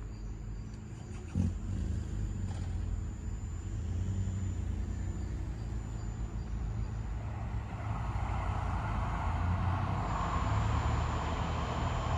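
A car passing, a low rumble with tyre noise that swells in the second half and fades near the end. A single knock sounds about a second and a half in.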